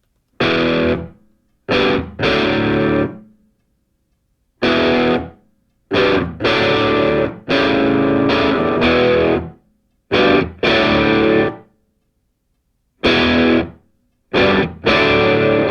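Music: a distorted electric guitar playing chords in separate stabs and short phrases, with silent gaps between them.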